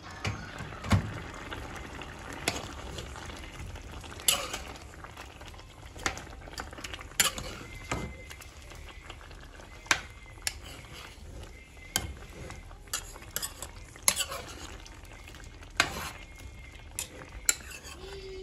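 A cooking utensil stirring food in a metal pot, knocking against the pot's side and bottom at irregular intervals every second or two, over a steady sizzle of food cooking in the pot.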